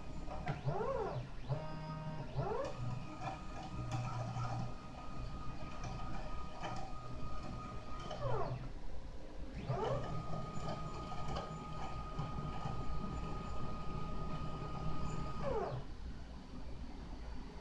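3D printer's stepper motors singing through its moves: the pitch rises as the head speeds up, holds steady through two long passes of about six seconds each, and falls as it slows, after a few short quick moves at the start.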